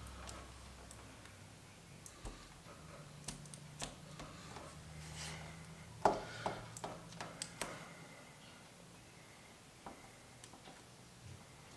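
Faint handling sounds of a plastic emblem cover being pressed and fitted onto a car's tailgate by hand: scattered small clicks and taps, the sharpest about six seconds in followed by a few quicker ones, over a low steady hum.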